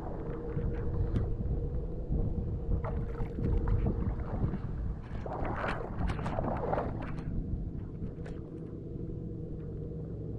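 Feet wading and sloshing through shallow, muddy flooded rice-paddy water, louder about five to seven seconds in, with wind on the microphone and a steady hum.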